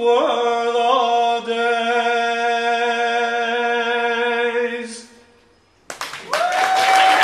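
A man's singing voice holding one long, steady note for about five seconds, closing the song. About six seconds in, the audience breaks into applause with a cheer.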